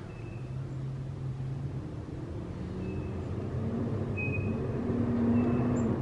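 Low engine rumble of a passing motor vehicle, growing louder toward the end, with a few short, high bird chirps.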